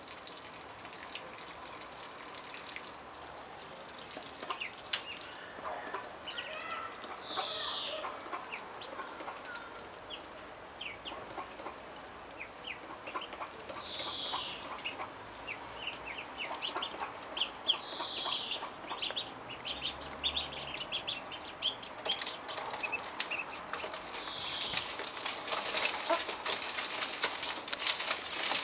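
A brood of ducklings peeping: many short, high calls throughout, with a few louder, longer peeps now and then. From about two-thirds of the way in, a dense run of sharp clicks and taps joins the peeping.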